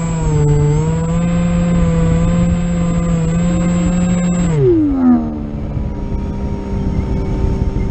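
Electric motor and propeller of a flying-wing model plane whining at a steady pitch, heard from on board with wind rushing over the microphone. About four and a half seconds in the pitch drops sharply as the throttle is pulled back, leaving a lower, steady hum.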